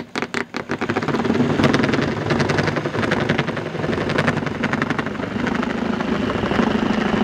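Corded Black+Decker jigsaw cutting through the coop's wall panel, the blade going through easily. It starts with a few separate stuttering strokes as the blade bites, then settles into a loud, steady run of rapid strokes.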